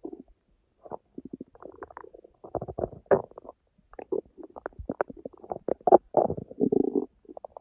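Empty stomach growling: irregular runs of gurgles and quick rumbling pulses, broken by short pauses. It is the sign of hunger after a skipped lunch.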